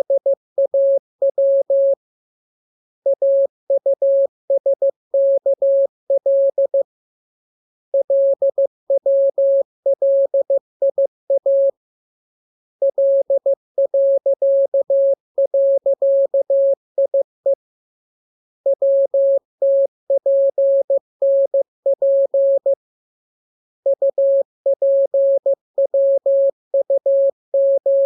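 Morse code (CW) sent as a single steady tone, keyed rapidly on and off in dots and dashes. The characters come in runs of a few seconds, separated by pauses of about a second, as in a practice radiogram of the lesson's letters.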